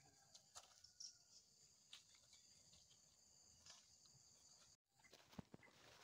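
Near silence: a faint steady high insect drone, with a few soft footsteps and rustles on dry leaf litter.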